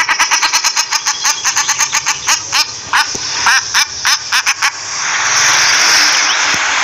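Common shelduck calling: a rapid run of short calls, about eight a second, that breaks off after about four and a half seconds, followed by a steady hiss.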